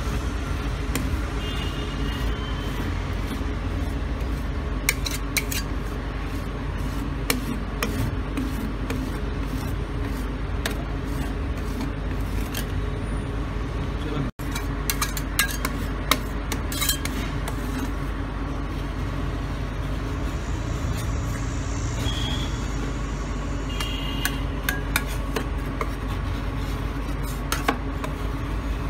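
Metal spatulas scraping and clicking against a steel ice-cream cold pan as a thin sheet of strawberry ice cream is smoothed and scraped up into rolls. The scrapes and clicks come irregularly over a steady low hum.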